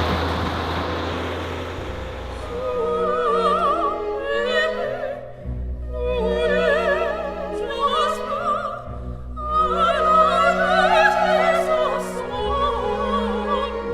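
Music: an operatic voice singing with heavy vibrato over orchestral accompaniment with held low notes. A rushing noise fades out under it in the first two seconds.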